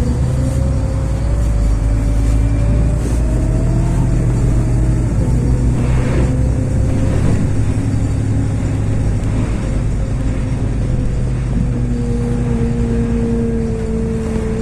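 LiAZ 6213 articulated diesel city bus driving. Its engine and drivetrain drone steadily, and a whine rises over the first few seconds, then eases off and holds level.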